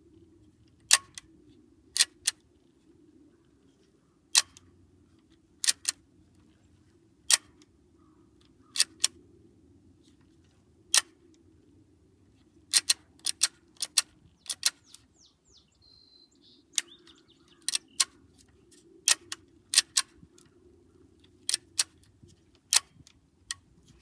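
Glock 19X Gen 5 pistol being dry-fired: sharp metallic clicks of its action, many of them and often in close pairs, at irregular intervals of a second or two.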